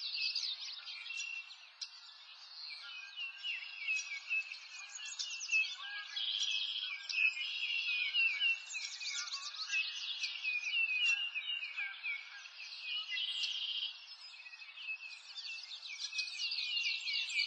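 A chorus of many small birds chirping and singing over one another: a dense, unbroken run of short high chirps and quick sweeps in pitch, with nothing low beneath them.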